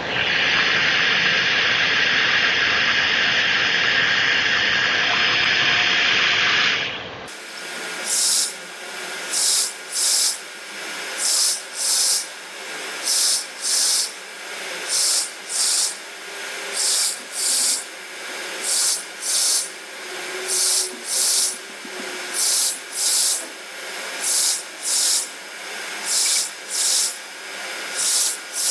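Anycubic Kobra 2 Neo 3D printer during bed auto-leveling: a steady hiss for about seven seconds, then pairs of short hissing motor-movement bursts about every two seconds as the machine moves between probe points.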